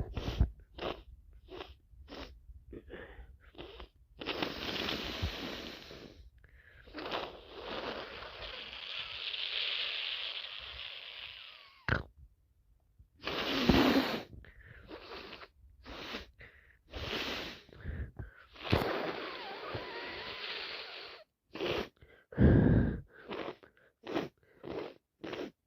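A person with a heavy cold sniffing over and over and blowing their nose hard into a tissue in three long blows of several seconds each. There are a few louder single bursts, sneezes, about halfway through and near the end.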